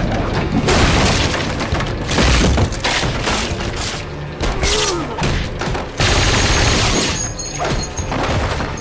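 Film fight sound effects: a rapid series of hard hits, crashes and thuds as a wooden chair is broken loose and swung, with a sudden loud hit about six seconds in, over tense score music.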